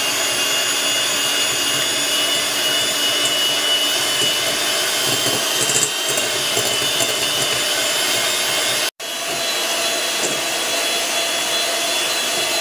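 Electric hand mixer running steadily, its beaters creaming butter and sugar in a glass bowl. The sound cuts out for an instant about nine seconds in.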